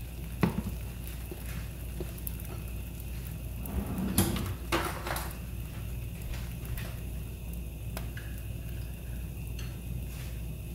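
Oiled paratha frying on a hot iron tawa: a faint steady sizzle over a low hum, with a short clatter of cookware about four to five seconds in and a few light clicks.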